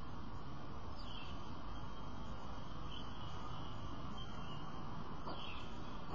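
Steady hiss of outdoor background noise, with two brief faint chirps, one about a second in and one near the end.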